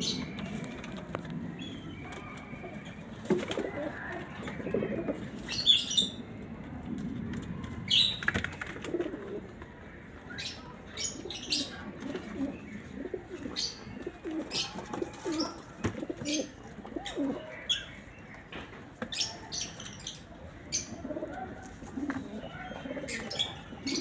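Caged domestic pigeons cooing over and over in low, wavering murmurs, with many short sharp clicks scattered among the coos.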